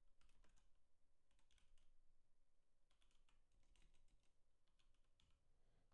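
Very faint computer keyboard typing: scattered, irregular keystrokes.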